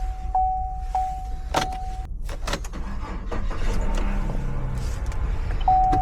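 A steady electronic beep, broken by several sharp clicks, sounds for about the first two seconds and comes back briefly near the end, over the low steady rumble of a car.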